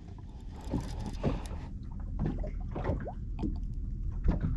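Water slapping and lapping against the hull of a small fishing boat in irregular splashes, over a steady low wind rumble on the microphone.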